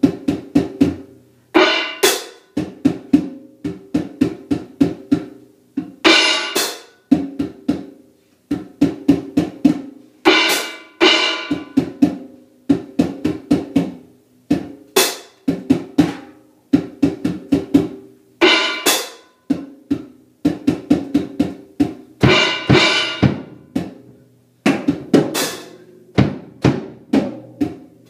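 Gretsch acoustic drum kit being played: quick runs of drum strokes with bass drum, and a crash cymbal hit about every four seconds.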